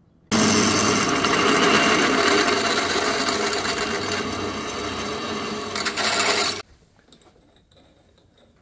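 A loud, steady metalworking tool noise that starts abruptly, runs for about six seconds and cuts off suddenly.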